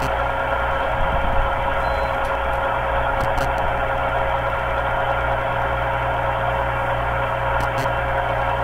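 Metal lathe running while a cutting tool turns an aluminum workpiece: a steady machine drone with a constant whine and a low hum, and one brief click about a second and a half in.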